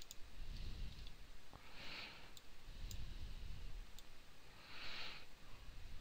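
A few faint, sharp computer mouse clicks over a low steady hum, with two short soft hisses about two and five seconds in.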